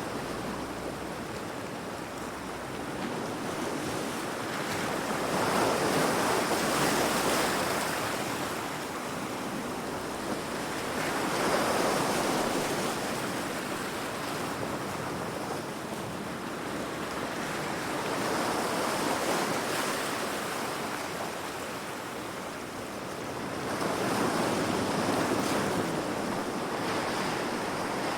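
Heavy ocean waves breaking against rocks: a continuous wash of surf that surges louder four times, every five to six seconds.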